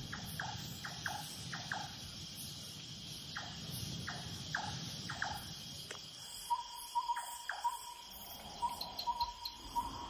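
Night insect chorus with a steady high cricket trill. Short squeaky chirps repeat about twice a second over the first six seconds, then give way to a bout of short, clipped calls at one pitch.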